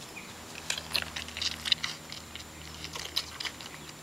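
Five-week-old Otterhound puppies suckling from their dam: a run of quick, irregular smacking clicks.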